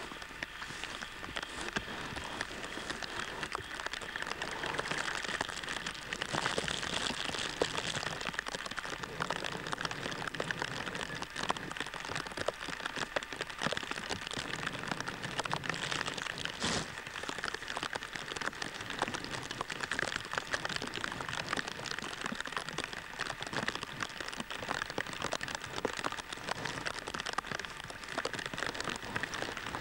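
Steady rain falling, a dense patter of drops.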